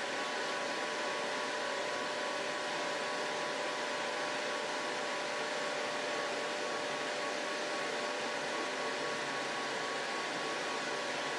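200-watt jewelry laser welding machine running after power-on, its water cooling system pumping water round: a steady whir with a faint steady hum in it.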